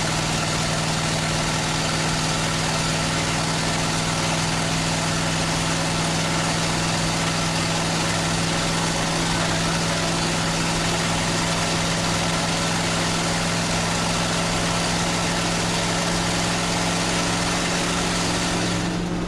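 Straight-piped engine of a 1970 pickup cruising at a steady speed while towing a trailer, heard from inside the cab: a constant low exhaust drone under heavy road and wind rush. The rush eases right at the end.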